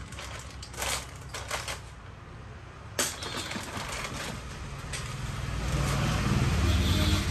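Workshop handling noises as parts are worked on: scattered clicks and light knocks, one sharper knock about three seconds in, then a low rumble that builds over the last two seconds.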